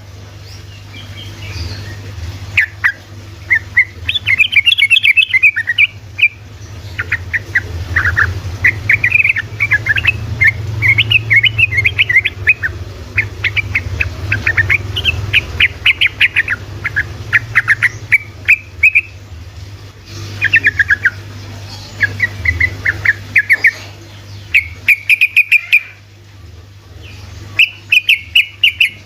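Yellow-vented bulbul singing in rapid bursts of short, quick chattering notes, phrase after phrase with brief pauses, over a steady low hum.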